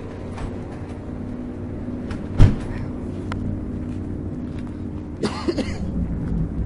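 Low, steady drone of several held tones, the unexplained 'strange sound' that seems to come from the sky. A sharp knock about two and a half seconds in and a short rushing noise near the end sound over it.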